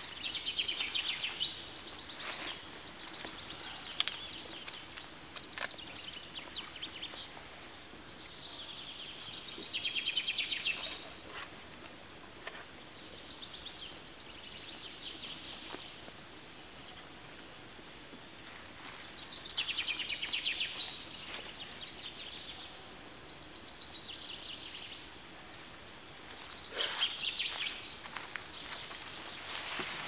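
Small wood campfire of dry sticks crackling with scattered sharp pops. A songbird sings a high, rapid trilled phrase four times, about every nine seconds.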